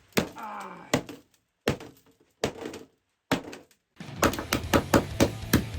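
A glued-together smartphone being struck hard to test how strong it is: five separate sharp knocks with short cracking sounds, then a fast run of hits from about four seconds in.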